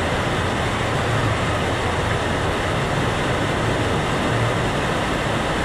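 Steady rush of water pouring through a mat-racer water slide's run-out lanes, close to the microphone.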